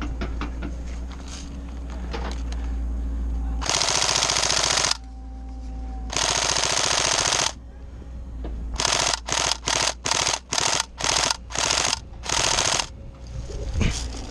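Tokyo Marui SCAR-L electric airsoft gun firing on full auto, its gearbox cycling rapidly: two sustained bursts of about a second each, then a quick string of about nine short bursts.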